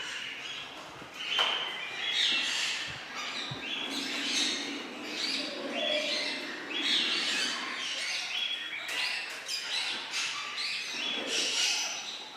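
Many parrots calling together, harsh calls one after another and overlapping.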